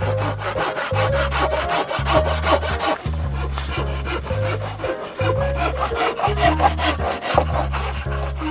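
Silky Woodboy pull saw cutting through a round wooden stake, with quick, even back-and-forth strokes.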